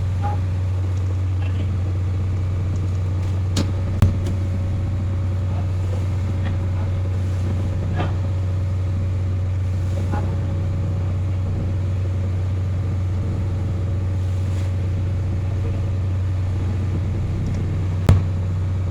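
A steady low mechanical hum, like a motor running, with a few sharp knocks about four seconds in, around eight seconds in and near the end.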